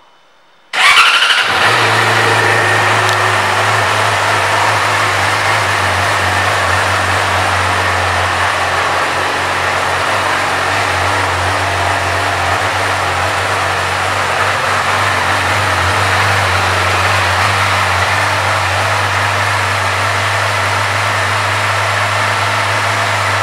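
2014 Yamaha YZF-R6's 600 cc inline-four engine starting about a second in, then idling steadily.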